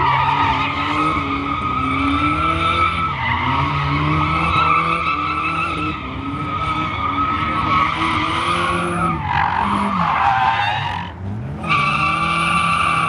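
Mid-engined Toyota MR2 drifting: its rear tyres squeal in long sustained screeches while the engine revs rise and fall under throttle. The squeal slides down in pitch, breaks off briefly near the end, then starts again.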